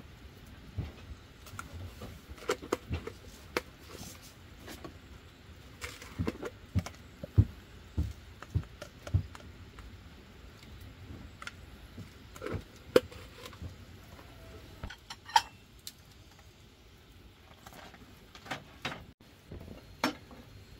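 Irregular knocks, taps and light clatter of objects being handled, with no steady rhythm; the sharpest knocks come a third of the way in, just past the middle and a little later.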